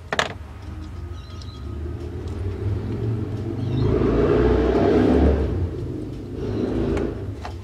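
Rustling, rumbling handling noise from a fleece sleeve brushing close past the microphone, swelling to its loudest about four to five seconds in and again briefly near the end, after a sharp click at the start.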